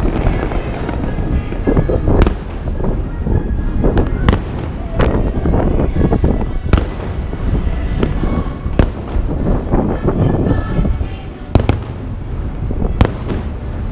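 Distant aerial fireworks bursting: a sharp crack every second or two over a continuous low rumble of booms, with music playing underneath.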